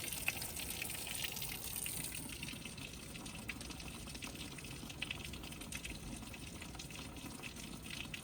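Heavy rain coming down hard, with water pouring and splashing from an overflowing gutter: a steady rushing hiss full of small spatters.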